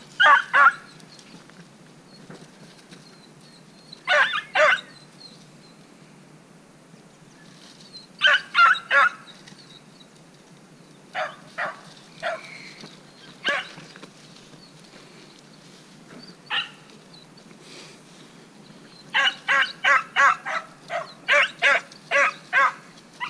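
Beagle baying on a rabbit's trail: short bawls in scattered bunches of two to four, then a quick string of about a dozen near the end.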